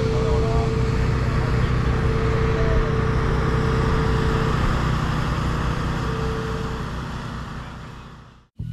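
A steady low engine-like drone with a held whine above it and faint voices, fading out near the end.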